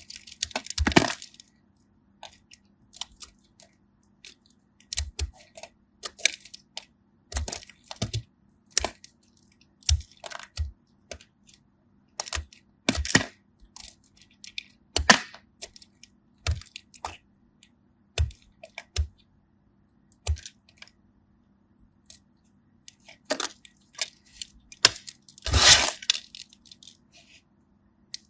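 Hardened kinetic sand clay cracking and crumbling: a string of sharp, irregular cracks and crunches a second or two apart, with longer crumbling runs near the start and near the end.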